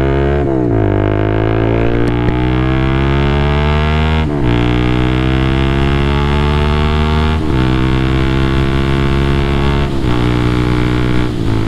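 Honda motorcycle engine accelerating up through the gears: the engine note climbs steadily, then drops at each upshift, about every three seconds.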